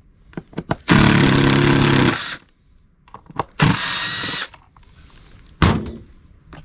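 Milwaukee cordless driver with a T25 Torx bit running screws out of a plastic seat base, in two runs of about a second each. Short clicks fall between the runs, and a sharp knock comes near the end.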